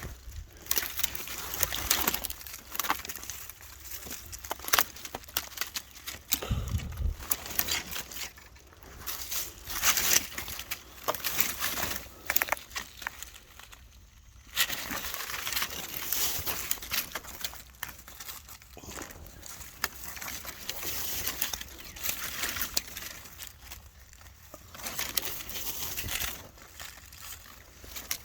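Digging and scraping by hand in loose dirt among tree roots: soil crumbling and trickling, with scattered small clicks and rustles coming and going.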